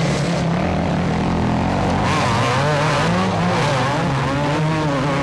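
Racing motocross bike engines being revved hard, their pitch rising and falling quickly with throttle and gear changes, with more than one engine heard from about two seconds in.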